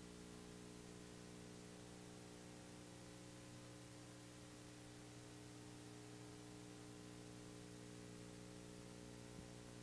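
Near silence: only a faint steady electrical hum and hiss, with no game sound.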